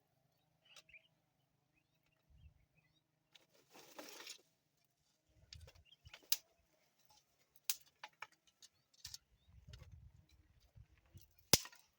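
Quiet scattered sharp clicks and knocks, with a short rustle about four seconds in and a run of low dull thuds near the end.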